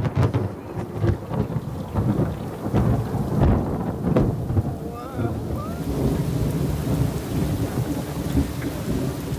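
Heavy squall rain pelting down with thunder rumbling, loud and continuous, with many sharp raindrop hits.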